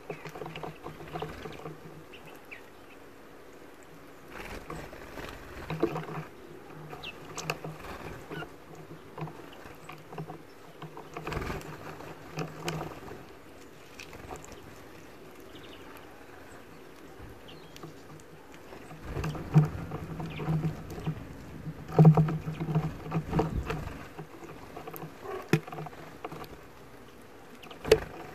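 European greenfinches feeding and squabbling at a dish of sunflower seeds: many sharp taps and clicks of bills on seeds and the metal dish, and of feet on the wooden perch. Louder flurries of wingbeats and scuffling come several times, the loudest about two-thirds of the way in, over a low hum that comes and goes.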